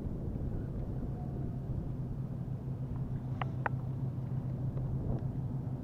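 Steady low rumbling drone, with two short sharp clicks a quarter second apart about three and a half seconds in.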